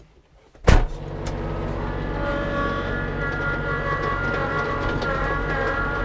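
A sharp bang as the tractor's cab door shuts, then the Kubota LX2610's three-cylinder diesel engine running steadily as the tractor pulls away on its tire chains.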